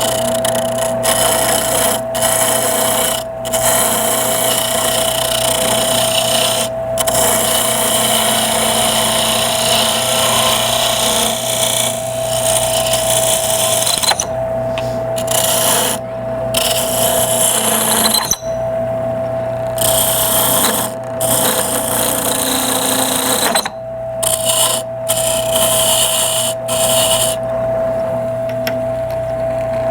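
Wood lathe running with a steady hum while a turning tool cuts the spinning wenge blank, a rough scraping hiss that breaks off in short pauses as the tool lifts from the wood. The cutting gets lighter near the end.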